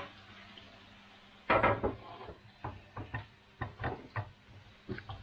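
Kitchen utensils knocking against cookware: a loud clatter about a second and a half in, then a run of lighter, irregular knocks.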